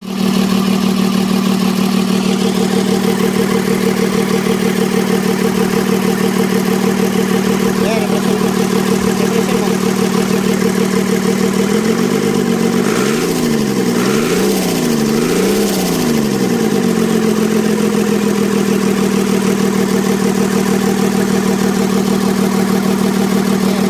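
Mitsubishi 6D17 straight-six diesel engine running steadily, its injection pump plunger newly replaced to cure hard starting. About halfway through, the engine speed swings down and up about three times, then settles back to an even run.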